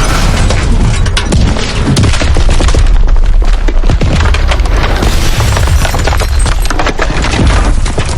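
Train crash sound effect: loud, continuous crashing with a deep rumble and many rapid impacts, like splintering and breaking.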